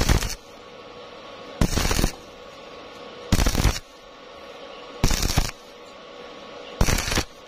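Stick welding with an E6013 rod on a thin square-tube joint: the arc is struck in short crackling bursts, each under half a second, about every second and a half to two seconds, five times. This on-off stitch technique keeps the thin tube from burning through; a faint steady hum fills the gaps between bursts.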